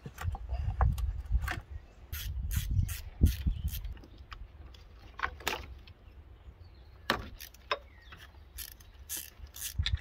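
Hand tools on engine fasteners: scattered sharp metallic clicks and clinks, some in quick clusters, as bolts are undone and parts handled, over low knocks and rustling.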